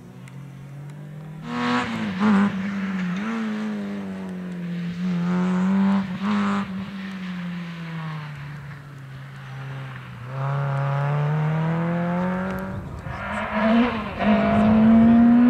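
Rally car engine revving hard, its pitch climbing and dropping again and again through gear changes and lifts as the car drives through the stage. It gets louder about a second and a half in and again about ten seconds in, and near the end a rush of noise joins the engine as the car comes close.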